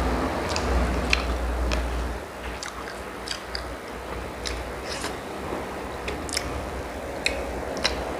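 Close-up eating sounds of someone biting and chewing linguiça sausage: irregular wet mouth clicks and smacks, with a low rumble in the background during the first two seconds.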